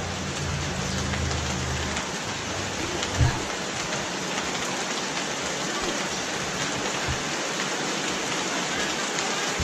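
Steady rain falling, an even hiss throughout. A low rumble underneath stops about two seconds in, and there is a single knock about three seconds in.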